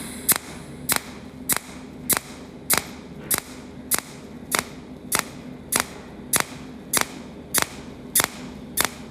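Cold welding machine firing in continuous pulse mode: a sharp crack for each weld pulse, about fifteen of them evenly spaced roughly 0.6 s apart, over a faint steady hum.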